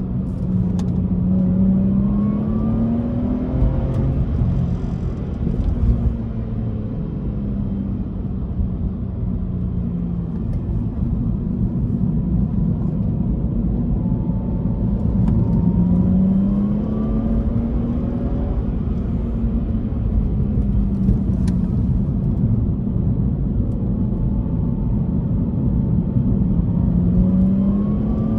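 Subaru Legacy 3.0R's EZ30R flat-six, held in 2nd gear, heard from inside the cabin. The engine note rises and falls as the throttle is opened and lifted through the bends, climbing in pitch about two seconds in, again around fifteen seconds and near the end, over steady tyre and road noise.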